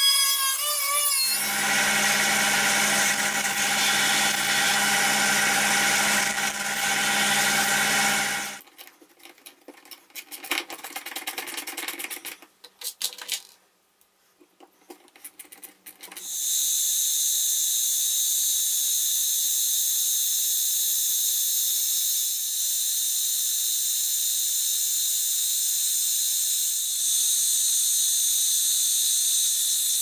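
Angle grinder with a cut-off disc cutting aluminium sheet, running steadily under load for about eight seconds. Then comes some scattered scraping and clicking of hand-tool work on the aluminium plate. From about sixteen seconds in, a milling machine cuts the aluminium plate with a steady, high-pitched whine.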